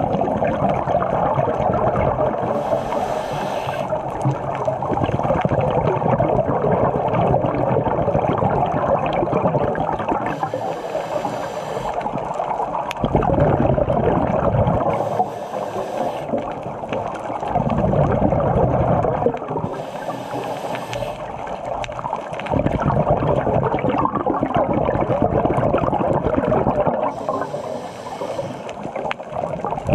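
Scuba regulator breathing heard underwater: several slow breath cycles, each a short hiss of inhalation followed by a longer bubbling, gurgling exhalation, over a steady wash of water noise.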